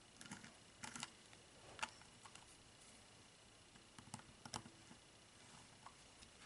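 Faint, scattered clicks and taps of small metal parts and tools being handled while a rifle scope's turret assembly is taken off, about half a dozen light ticks, the sharpest about two seconds in.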